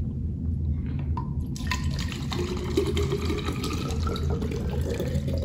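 Water poured from a plastic water bottle into a plastic Cirkul water bottle, starting about a second in. The pitch of the filling rises steadily as the bottle fills.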